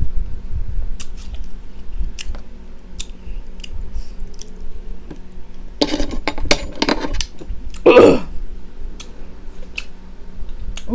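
Close-up chewing of juicy watermelon: wet mouth clicks and smacks, with a louder stretch of crunching and slurping about six seconds in. About eight seconds in there is one short groan.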